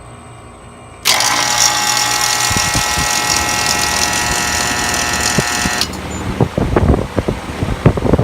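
Ruud R22 air-conditioner condensing unit starting up: about a second in a loud steady hissing whine cuts in, and after about five seconds it drops into an irregular clattering and knocking from the compressor, like aluminum cans being shaken inside it. The rattle is the sign of a compressor at the end of its life.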